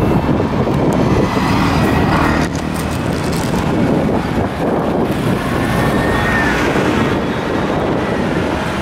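Steady city road-traffic noise from passing cars, with wind rumbling on the microphone.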